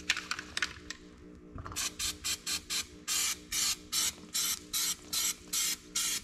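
Aerosol can of Raptor bed liner spraying in a rapid series of short hissing bursts, about two or three a second, beginning a couple of seconds in after a few clicks.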